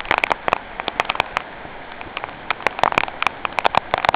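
Footsteps crunching through fallen branches and leaves: irregular sharp crackles and snaps, in clusters about a second in and again near the end, over a steady hiss.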